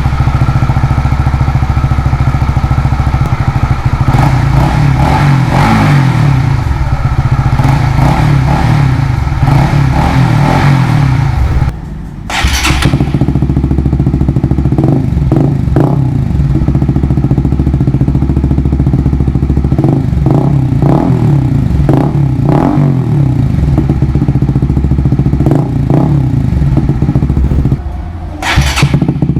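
Honda CBR150R's single-cylinder engine running through an Akrapovič slip-on muffler, idling between repeated short revs. The sound breaks off briefly twice, about 12 seconds in and near the end.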